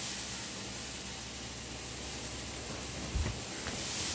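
Christmas inflatable's blower fan running steadily, a hiss with a low hum, as the just-repaired inflatable fills with air. A short low thump about three seconds in.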